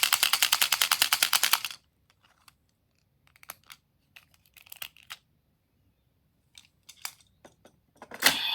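Plastic toy parts clicking rapidly and evenly, about a dozen clicks a second, stopping about two seconds in. Then come scattered light clicks and taps of the toy being handled, and a loud sound from the toy begins just before the end.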